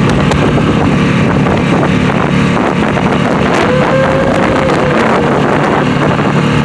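Small outboard motor running steadily, pushing an inflatable dinghy across choppy water.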